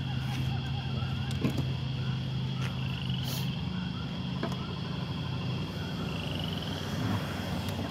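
A steady low hum, like an engine running, with faint bird chirps and a few light clicks over it.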